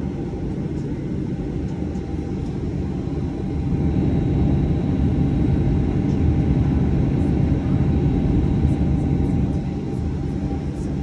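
Jet airliner engines and cabin noise heard from inside the cabin on the ground: a steady low rumble with a thin high whine, swelling louder about four seconds in and easing back near the end.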